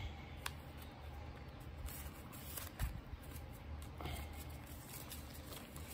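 Paper banknotes rustling as they are handled and slipped into a plastic binder pocket, with a few faint clicks over a low steady hum.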